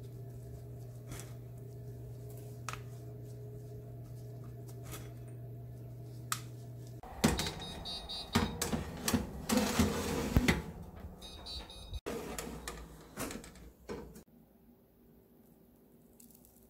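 A steady low hum with a few faint taps while chocolate chips are pressed onto cookie dough. About seven seconds in, a metal baking tray clatters and knocks against the racks of a convection oven for several seconds of loud, irregular rattling as it is slid in.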